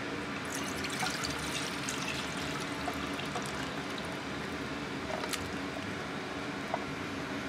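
Dashi soaking water with kelp and dried sardines being poured into an aluminium saucepan: a steady splashing pour. A few light clicks and taps come through as the pour goes on.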